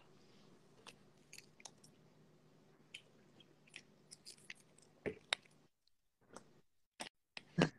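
Quiet drinking from a clear plastic water bottle: scattered small clicks and crinkles of the bottle, with mouth sounds.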